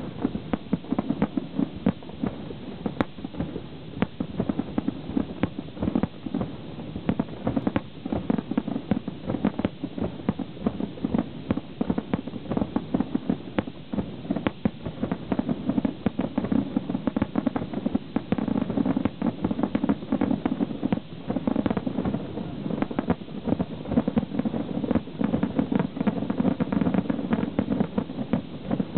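Aerial firework shells bursting in a dense, rapid barrage, with many bangs a second overlapping over a steady low rumble.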